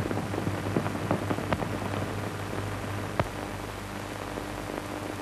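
Surface noise of an old 1930s film soundtrack: a steady hiss with a low hum and a few scattered crackles and clicks.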